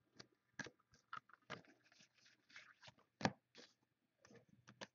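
Trading cards being handled by hand: an irregular run of light rustles, slides and taps as the cards are flipped through and set down, with one sharper tap about three seconds in.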